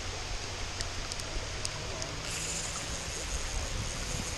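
Fast, shallow river water rushing steadily around the wading angler. A few faint clicks come in the first two seconds, and the hiss turns brighter about two seconds in.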